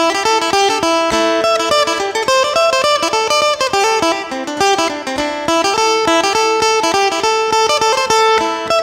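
Thai phin (Isan lute) played solo in the lam phloen style: a quick plucked melody of many short notes over a steady ringing drone note.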